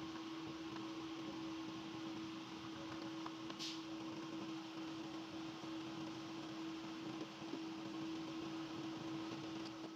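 Steady hum with a faint hiss, and one short scrape about three and a half seconds in as the plastic fuse and relay box cover is handled.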